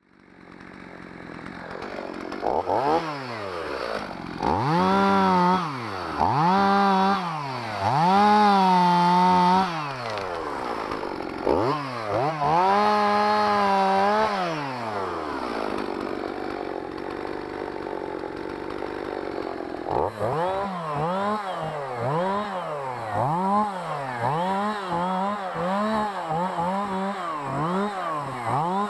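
Two-stroke chainsaw being revved: several throttle blips, held at high revs twice for a couple of seconds, dropping to idle for a few seconds in the middle, then a quick series of blips a little more than one a second.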